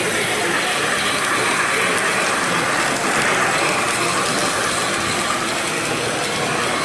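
Model steam locomotive and its wagons running along the layout's track, a steady mechanical running sound that grows louder as the train passes close about three seconds in, then eases off.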